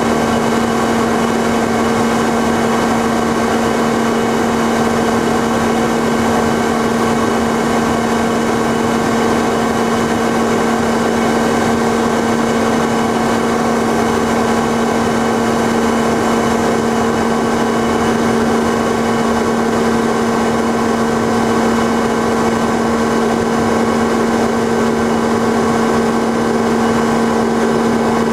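Cessna 185's piston engine and propeller in flight, a loud, steady drone that holds one pitch with a strong low hum and its overtones.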